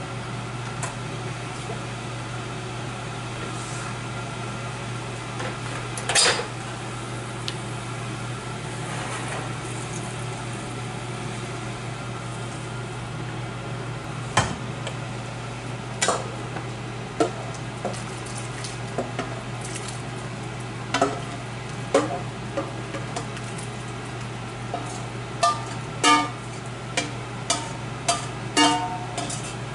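Metal utensil knocking and scraping against a roasting pan as chicken and baked vegetables are spooned into a slow cooker, with a few separate knocks early on and quick clinks, some briefly ringing, crowding the last third. A steady low hum runs underneath.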